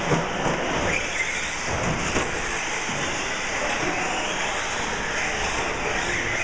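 Several four-wheel-drive electric short-course RC trucks racing: a steady hiss of motors and tyres, with now and then a whine rising and falling as a truck speeds up and slows down.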